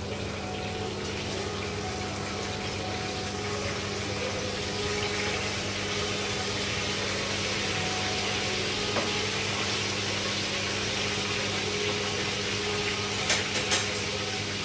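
Fish frying in oil in a pan, a steady sizzle over a low hum, with a few sharp clicks near the end.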